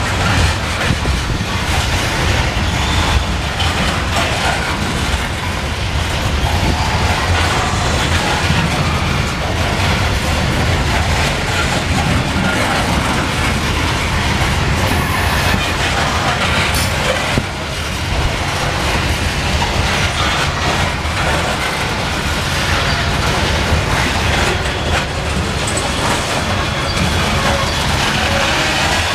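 Fully loaded coal hopper cars rolling past at close range: steel wheels on the rails make a steady, continuous clatter.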